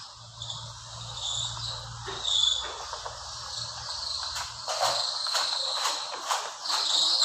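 Insects chirping, like crickets, high and patchy, with scattered clicks and knocks. A low steady hum runs underneath and stops about six seconds in.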